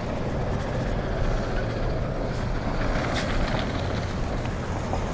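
Steady rushing wind and road noise from riding a bicycle, heavy in the low end, with a few faint clicks.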